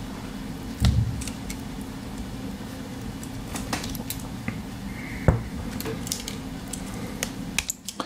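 Small metal clicks and scrapes of pliers gripping and prying at a USB-C connector's metal shell and plastic housing, irregular, with a louder knock about a second in and a sharp click a little past five seconds, over a steady low hum.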